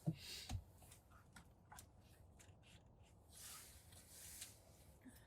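Faint handling noises as plastic dashboard trim is moved about: a soft knock at the start and another about half a second in, then scattered light clicks and a brief rustle.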